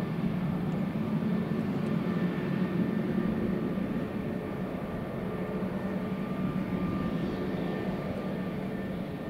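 Airbus A320neo's jet engines running, a steady rumble with several steady whining tones, fading slightly near the end.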